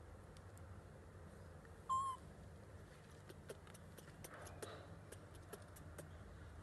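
A baby monkey gives one short high squeak about two seconds in, then faint scattered clicks as it handles and mouths a plastic toy excavator.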